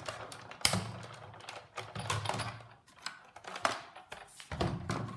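Sizzix Big Shot die-cutting machine being hand-cranked, its cutting-pad sandwich rolling through with irregular clicks and clacks, the loudest about two-thirds of a second in.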